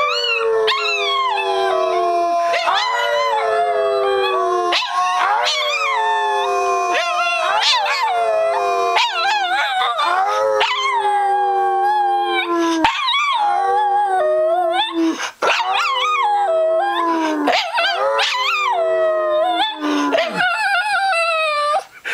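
Small dog howling: a run of long howls, each sliding down in pitch, one after another with barely a break.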